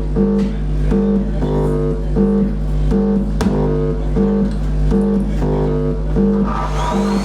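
Music with a steady, repeating pattern of low notes, a little under two a second, over a constant low drone, with a sharp click about three and a half seconds in. Near the end a vacuum cleaner motor starts up, its whine rising in pitch under a growing hiss.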